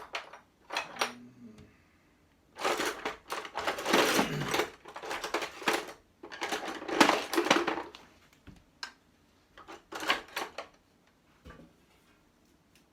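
Metal hand tools clattering and rattling as they are rummaged through for a smaller flat screwdriver, in three bursts of a second or two with scattered clicks between.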